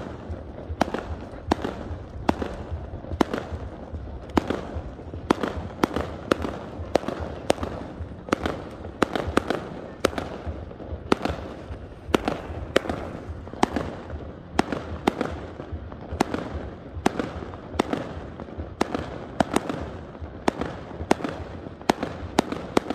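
Fireworks display going off: a continuous, irregular run of sharp bangs and crackles, about one to three a second.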